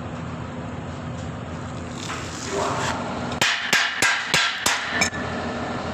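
Six sharp metallic hammer strikes, about three a second, each ringing briefly, over a steady machine hum.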